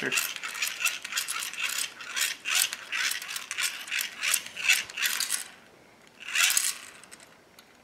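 Plastic gears of a hand-cranked toy dynamo lantern clicking and whirring rapidly as the crank is turned fast to spin its small generator motor and light the LED. The cranking stops about five and a half seconds in, and one short burst of cranking follows.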